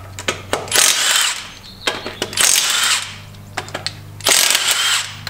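Cordless impact wrench hammering wheel bolts loose on a VW MK4 Jetta, in three short bursts a couple of seconds apart, with light clicks of the socket between them.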